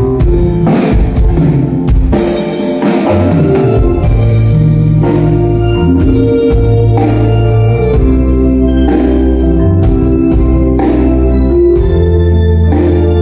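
Live band music: electronic keyboards holding organ-sounding chords over bass and regular drum hits.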